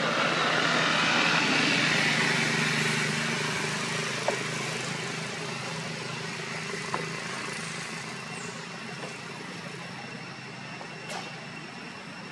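A motor vehicle passing on a road, its engine and tyre noise steady at first and slowly fading away. Three short clicks stand out, at about four, seven and eleven seconds in.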